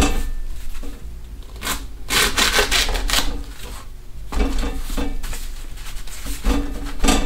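Kitchen knife sawing through the husk and cob end of an ear of fresh corn on a plastic cutting board, in several scraping strokes.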